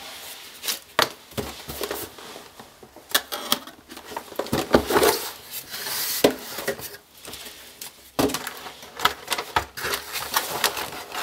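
A cardboard motherboard box being opened and handled by hand: irregular light taps, knocks and scrapes of cardboard, with brief rustles.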